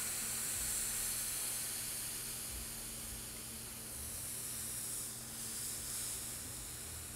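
Steam hissing steadily from a wet towel pressed under a hot clothes iron, driven into a dent in a wooden rifle stock to swell the crushed wood fibers back up.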